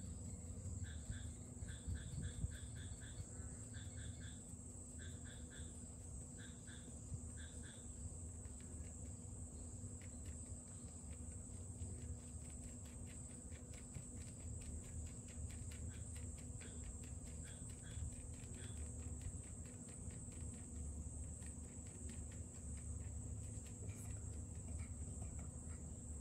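Faint insect chirping: short pulses in quick groups through the first eight seconds or so, then only now and then, over a steady high whine and a low hum.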